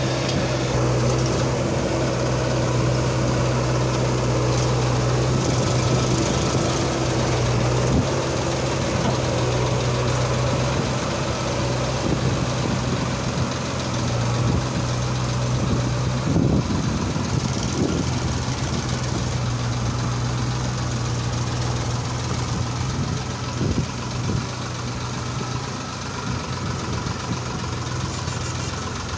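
Diesel engines running steadily: a Farmtrac tractor pulling a trolley fully loaded with soil, with a JCB backhoe loader close by.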